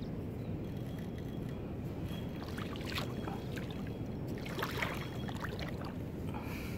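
Steady low rush of water and outdoor air, with brief splashy crackles about three seconds in and again around five seconds in.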